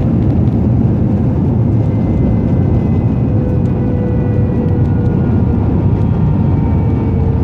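Airbus A320 cabin noise during the landing rollout: a loud, steady rumble of the engines and the wheels on the runway. Faint engine whine tones sink slowly in pitch through it.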